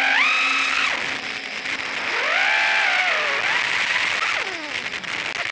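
Brushless motors of an HGLRC Petrel 120X 3-inch 4S FPV quadcopter whining in flight, over steady hiss. The pitch rises and falls several times as the throttle changes, with a rise about a second into the flight segment shown, another swell around two to three seconds, and a falling glide near the end.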